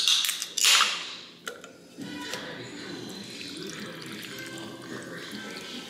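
Can of carbonated energy drink cracked open with two sharp hissing bursts in the first second, then the fizzy drink poured steadily over ice cubes in a glass, splashing and fizzing.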